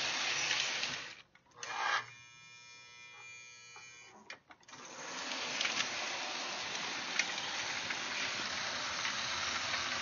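Twin motors of a Lionel F3 diesel chassis running on three-rail track, a steady whir with wheels rolling. The trucks and gears have just been cleaned of old grease, so the wheel sets turn freely. The sound cuts out about a second in and picks up again steadily about five seconds in.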